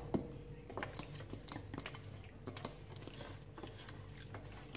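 Hands rubbing raw chicken pieces in a thick, wet tomato-paste-and-spice marinade in a stainless steel bowl: soft squelching with many small scattered ticks and taps.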